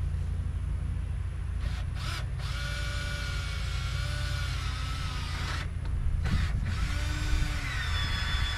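Power drill running in spells, with its pitch wavering under load and a few brief stops in between.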